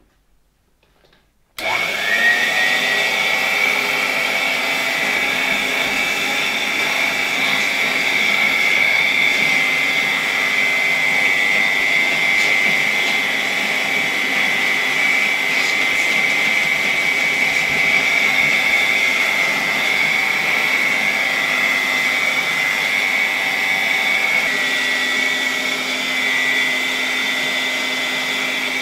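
1964 Gamma II (type A-6b) vacuum cleaner with its KASB-70/30 electric motor, switched on on mains power about a second and a half in. It spins up quickly with a short rising whine, then runs steadily with a high whine. A little bearing noise is audible, which the owner puts down to the motor's 60 years of age.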